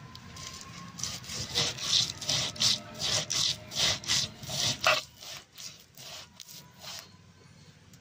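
Soaked red lentils and rice being ground on a flat grinding board (pata) with a hand-pushed roller: a rhythmic rasping rub, about two strokes a second. It is loudest in the middle and grows fainter after about five seconds.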